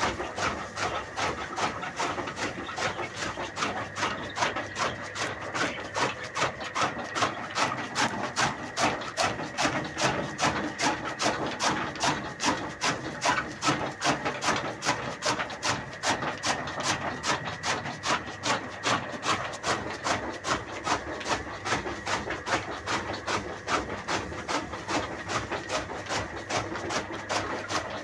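Chaff cutter running, its blades chopping fodder in a fast, even rhythm of about three cuts a second over a steady machine whine.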